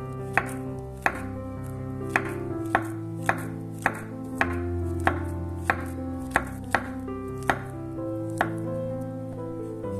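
Chef's knife slicing a banana into rounds on a wooden cutting board, the blade knocking the board about thirteen times at an uneven pace of one or two cuts a second. Soft background music with held notes runs underneath.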